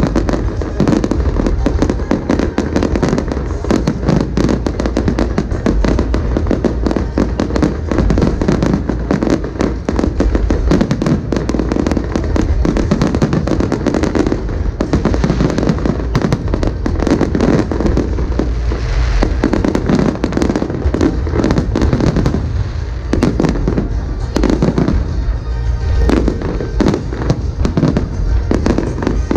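A dense, continuous fireworks barrage: shells bursting in rapid succession with crackling, over a heavy low rumble, with music playing underneath.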